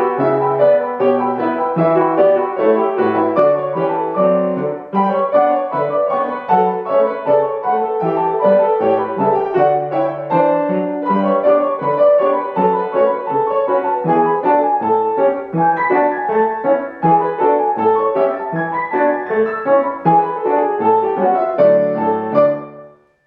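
Piano playing a lively polka, a dense run of notes that stops on a final chord just before the end.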